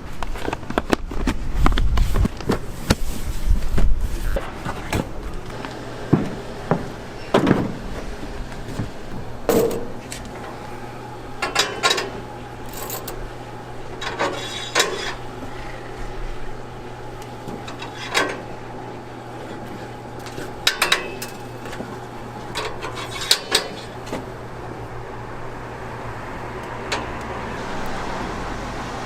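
Dishes and metal utensils clattering and clinking in a string of irregular knocks and ringing clinks, with heavier thumps in the first few seconds. A steady low hum runs underneath from about a third of the way in.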